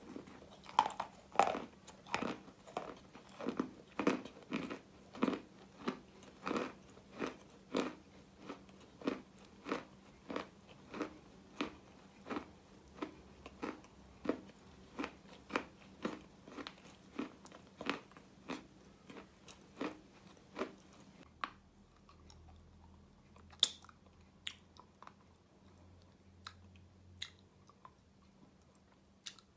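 Close-miked chewing of Russian chalk: crisp crunches at about two a second for some twenty seconds. The chewing then drops to a few soft mouth clicks.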